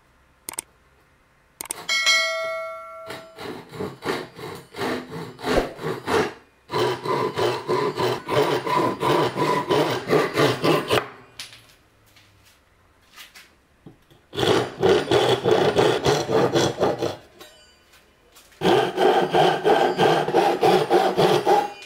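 Japanese pull saw cutting through a small piece of hardwood by hand, in quick, even rasping strokes at about three a second. The strokes come in three runs with short pauses between them. About two seconds in there is a brief metallic ring.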